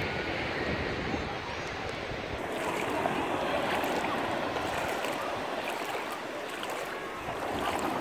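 Shallow sea water lapping and sloshing, with small waves washing in over the sandy bottom, swelling a little about three seconds in.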